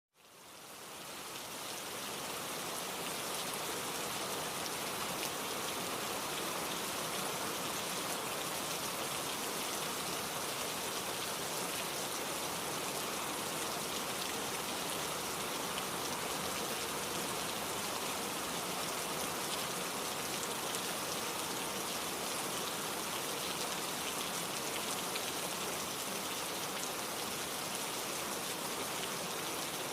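Steady rain falling, a dense even patter that fades in over the first couple of seconds and then holds.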